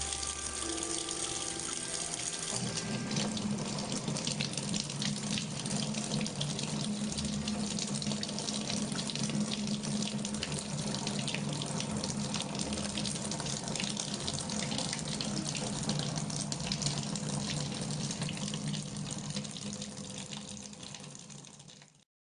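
Water running steadily from a tap, fading and cutting off near the end.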